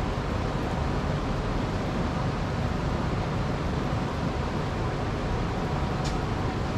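Steady fan-like whoosh with a faint hum, and one light click about six seconds in.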